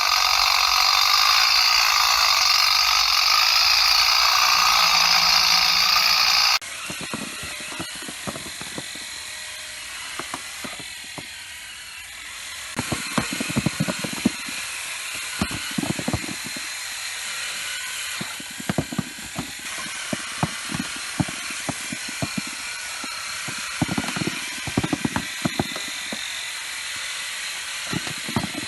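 Music for about the first six seconds, then an abrupt cut to electric olive-harvesting combs running in the branches: a steady mechanical rattle with a thin high whine and many irregular clicks and knocks.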